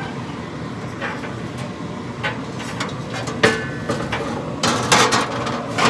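Steel heat-deflector pan knocking and scraping against the metal barrel and drip tray of a Pit Boss vertical pellet smoker as it is set in place. One sharp ringing clank about three and a half seconds in and a quick flurry of metal knocks near the end, over a steady low hum.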